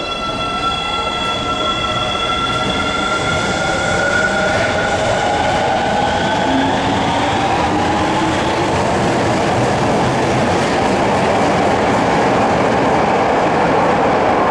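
Osaka Metro 20 series subway train pulling out of the station: a whine from its traction motors rises in pitch as it accelerates, under wheel and rail noise that grows steadily louder.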